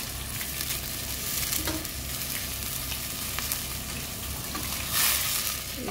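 Chicken broth being poured into a hot pot of rice and sautéed onions, sizzling steadily as the liquid hits the hot pan. A louder surge of sizzling about five seconds in, as a second cupful goes in.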